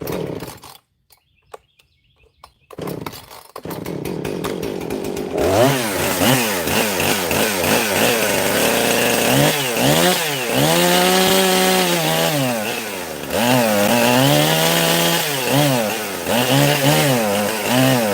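Husqvarna Rancher two-stroke chainsaw being started: a few short knocks, then the engine catches about three seconds in and runs loudly, its revs rising and falling unevenly. The owner blames the saw's unsteady running on a fault that a new spark plug did not cure.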